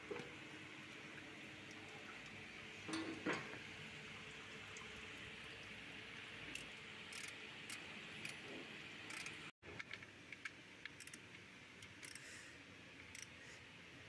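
Faint metallic clinks and taps of a socket wrench and extension being handled at the oil drain plug, with a louder clatter about three seconds in, over steady workshop hiss.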